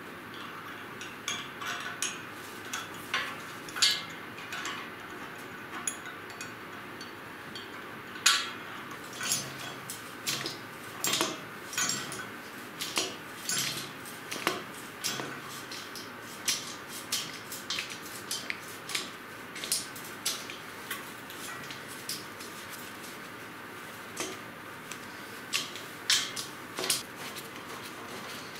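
Irregular small metal clicks and clinks from a hex screwdriver and screws working against a steel motor mounting plate, as a stepper motor is screwed onto it.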